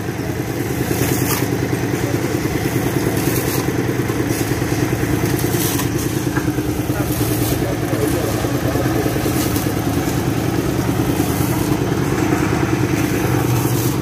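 An engine running steadily at constant speed with an even, fast pulse, and a few faint knocks over it.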